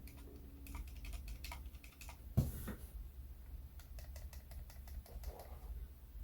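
Typing on a Keychron K1 Version 4 mechanical keyboard with Gateron Red low-profile linear switches: irregular key clicks a few times a second, with one heavier stroke about two and a half seconds in.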